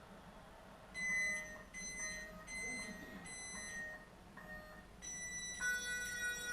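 ESP32-based Arduvario variometer sounding its descent (sink) alarm as electronic beeps. Each beep holds one steady pitch and lasts well under a second, with short gaps between them. Near the end the beeps give way to a continuous tone.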